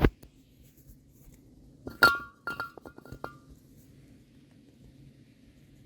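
A sharp metallic clink with a short ringing tone about two seconds in, followed by a few lighter clinks over the next second or so; otherwise faint workshop room tone.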